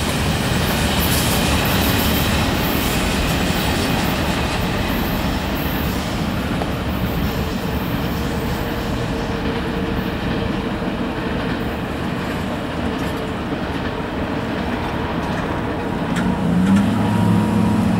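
Tail end of a Norfolk Southern freight train rolling past on the rails, its wheel noise and clatter dying away as the last car recedes. Near the end a road vehicle's engine comes in with a low steady hum.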